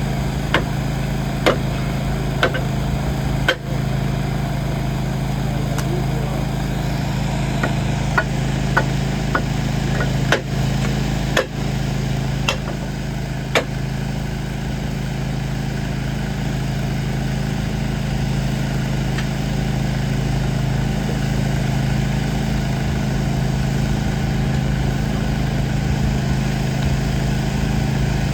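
Engine of heavy track-repair equipment running steadily at idle. Sharp knocks come about once a second for the first few seconds, and a handful more come between about eight and fourteen seconds in.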